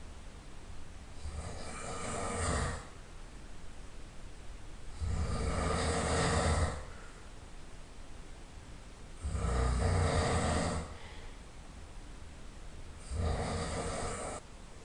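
A person snoring loudly in a regular rhythm: four long snores, one about every four seconds, each lasting a second and a half to two seconds, with quieter stretches between them.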